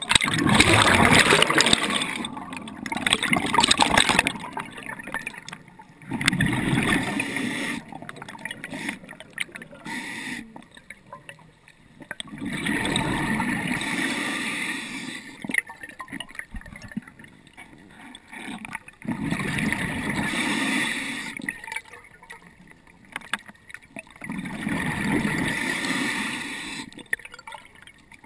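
A scuba diver's regulator breathing underwater: each exhale sends a gush of gurgling bubbles, coming back about every six seconds and lasting two to three seconds each, with quieter inhales between.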